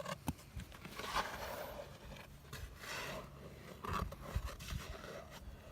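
Irregular scraping and scratching in soil, as dirt is cleared around a buried artillery shell in a dig hole, with a sharp click about a quarter second in.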